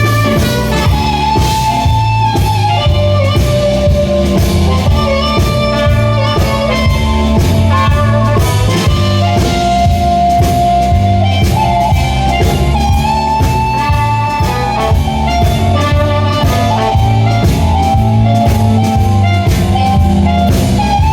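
Instrumental break of a bluesy band song: drum kit keeping a steady beat under a low bass line, with a lead instrument playing a solo melody of held notes.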